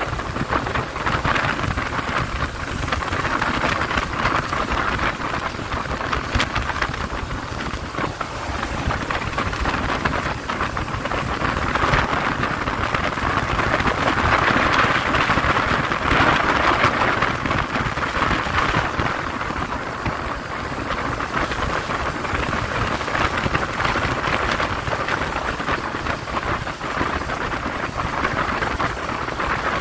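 Steady wind rush buffeting the microphone at around 80 km/h on a Yamaha Crypton S, with road and engine noise underneath; it swells a little about halfway through.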